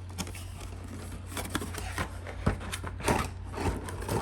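Plastic Play-Doh toy pieces being handled: scattered small clicks and rustles, more frequent after about a second and a half, over a steady low hum.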